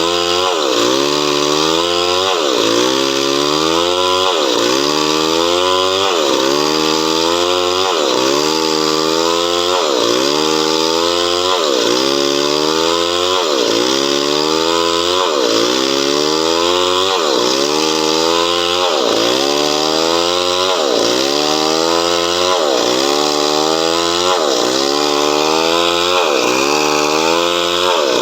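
Chainsaw running while cutting coconut wood, its engine pitch dipping and climbing back in a steady, repeating cycle about every second and a half.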